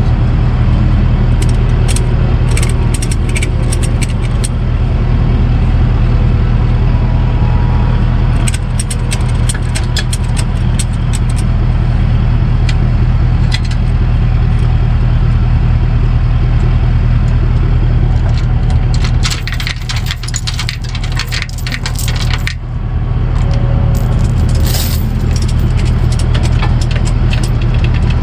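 Truck engine running steadily under way, with clinks and rattles from the cab. A denser burst of rattling comes about twenty seconds in, while the engine drone briefly drops.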